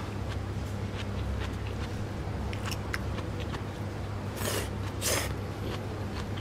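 A person slurping ramen noodles, with two loud slurps about four and a half and five seconds in. Small clicks and smacks of eating are heard between them, over a steady low hum.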